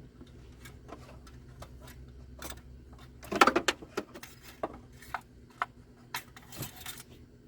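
Light clicks, taps and scraping of a 2021 Ford F-150's engine-oil dipstick being handled, slid into and drawn out of its tube, with a burst of rattling about three and a half seconds in.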